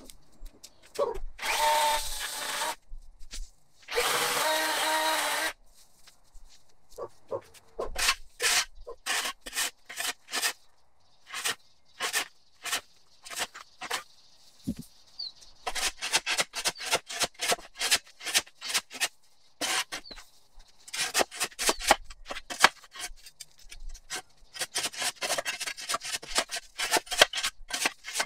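Steel shovel blade scraping over a concrete patio in many short, quick strokes, clearing dried grass clippings and dirt. Two louder bursts of about a second each come in the first few seconds.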